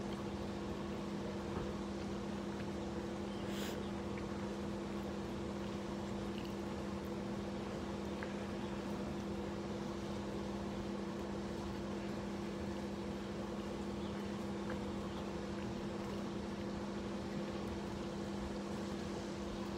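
A steady low machine hum with a couple of constant low tones in it, unchanging throughout, with a short faint click about three and a half seconds in.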